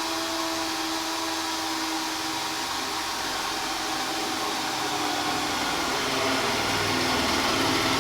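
Cordless drill running continuously under load, boring a bolt hole through metal. A steady motor whine that grows a little louder near the end.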